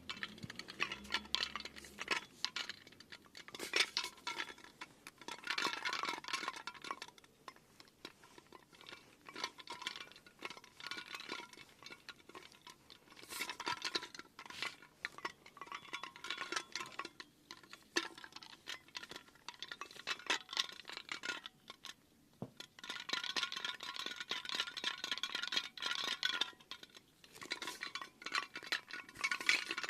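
Rapid light clinking and tinkling of small hard objects, with a bright ringing quality, coming in busy spells of a few seconds separated by short lulls.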